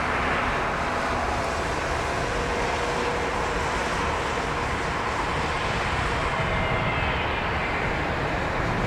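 Jet airliner engines running at the airport: a steady rushing noise with faint whining tones, some slowly falling in pitch.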